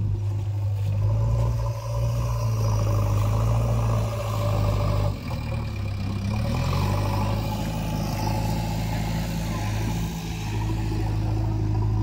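Diesel engines of a JCB 3DX backhoe loader and a Mahindra Arjun 555 tractor running during mud loading. One engine holds a steady pitch, and a second revs up about six seconds in.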